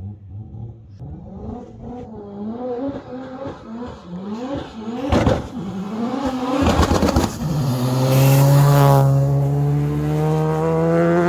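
Mazda RX-7 hillclimb race car accelerating hard, its engine note climbing and dropping through several gear changes. It is loudest as it passes close by, then holds a slowly rising note as it pulls away up the road.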